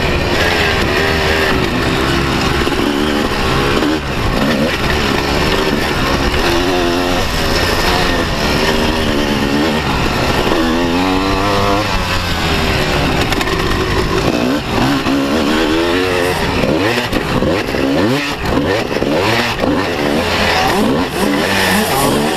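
Honda 250 motocross bike's engine, ridden hard, revving up and falling back again and again through the corners and straights.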